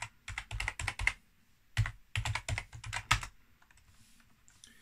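Keys being struck on a computer keyboard: two quick runs of typing, each of several key presses, then it falls quiet for the last second and a half or so.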